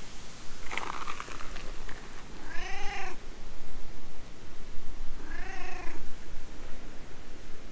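Stray cat meowing twice while it is being stroked: two short meows, each rising and then falling in pitch, about two and a half seconds apart.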